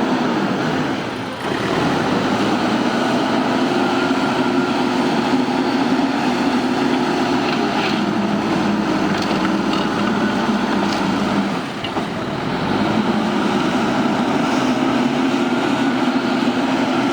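Diesel engine of a JCB backhoe loader running steadily under load while it works gravel, dipping briefly in level twice, with a few faint clanks partway through.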